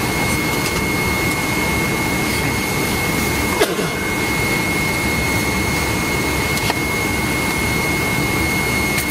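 Steady in-flight cabin noise of a McDonnell Douglas MD-90 airliner on descent: the rush of its rear-mounted jet engines and the airflow, with a thin steady whine above it. A single short click about three and a half seconds in.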